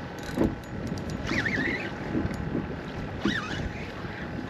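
Wind buffeting the microphone and water slapping against the hull of a small center-console boat drifting, with two brief wavering squeaks.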